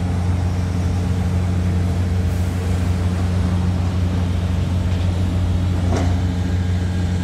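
Heavy diesel engines of demolition plant and a departing lorry running steadily: an even, unchanging low drone, with one brief click about six seconds in.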